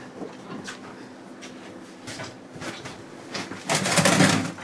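Light clicks and rustles of a fishing line and gear being handled at an ice-fishing hole. About three and a half seconds in comes a loud splashing, rustling burst of about half a second as a hooked walleye is hauled up out of the hole.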